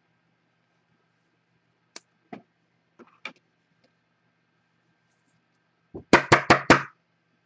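A few scattered light clicks, then near the end a quick run of about five sharp knocks in under a second.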